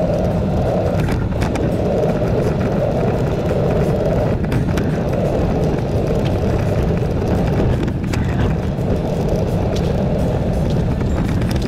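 Steady wind buffeting the microphone and tyre rumble on a paved path during a bicycle ride, with a few sharp clicks.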